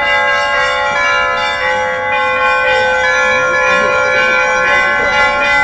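Trezvon, the Russian Orthodox festal peal, rung on a portable belfry of church bells: many bells ringing together without a break, their tones overlapping.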